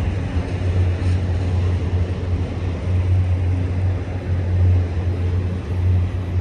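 A group of BNSF diesel locomotives running, a steady low engine drone with a rumbling haze over it.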